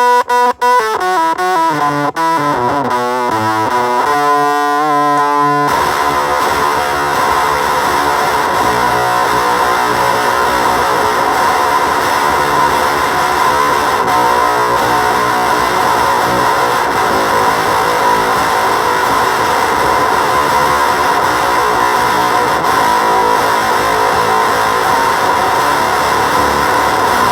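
Electric guitar played through a Gremlin Machine Shop Avedissian octave fuzz pedal: separate fuzzed notes for the first few seconds, then from about six seconds in a dense, steady wall of fuzz.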